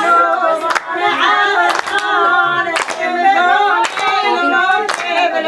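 Women singing together unaccompanied, with sharp hand claps about once a second.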